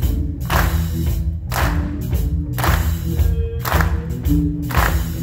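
Live electric blues band playing: electric guitars over bass and drums, with a steady beat of drum and cymbal hits.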